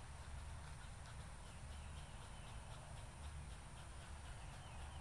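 Squirrel barking an alarm call, short faint calls repeated about four times a second over a low wind rumble.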